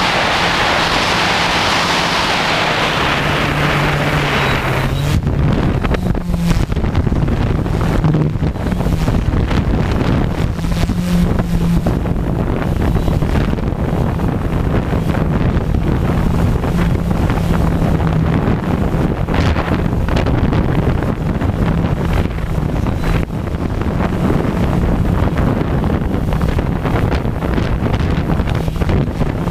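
Multirotor drone's electric motors and propellers droning steadily overhead, with wind buffeting on the microphone. A strong hiss over the first few seconds cuts off suddenly about five seconds in.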